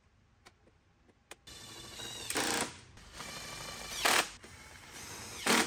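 Cordless DeWalt power driver running fasteners into the plastic body panels: a steady motor whine starts about a second and a half in, with three short, louder bursts. A couple of faint clicks come before it.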